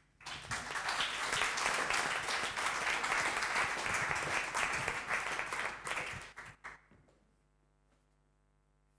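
Audience applauding, breaking out right away and thinning to a few last claps before dying out about seven seconds in.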